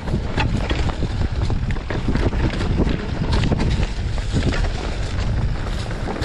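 Wind buffeting the microphone during a mountain bike ride on rough singletrack, with irregular clicks and knocks from the bike rattling over the ground.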